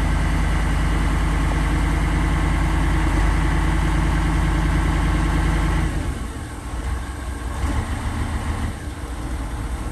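Heavy diesel earthmoving-machine engine running steadily. About six seconds in, the sound drops in level and turns rougher and lower.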